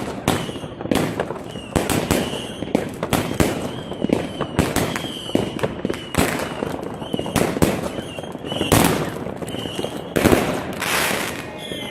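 Fireworks and firecrackers going off in quick, irregular succession: many sharp bangs and crackles, with short high-pitched whistles in between.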